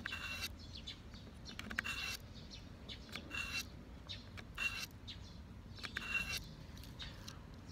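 A knife blade is drawn through a Victorinox Dual Knife Sharpener, giving about five short rasping strokes roughly one every second and a half. Each stroke has a thin high metallic ring.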